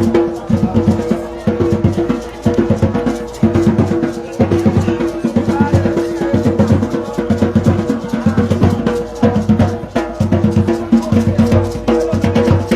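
Music with a steady drum beat and heavy bass.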